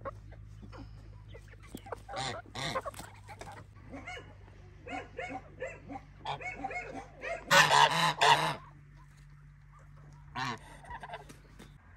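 Domestic geese honking in short calls scattered throughout, with the loudest burst of honking a little past halfway.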